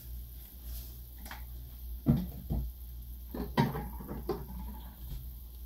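Several light knocks and clunks of kitchen containers being picked up and set down on a countertop, the loudest about two seconds in and again about three and a half seconds in, over a steady low hum.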